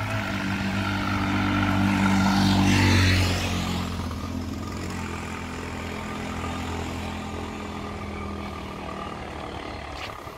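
A motor vehicle passing on the road: its engine hum and tyre noise grow louder to a peak about three seconds in, then fade away.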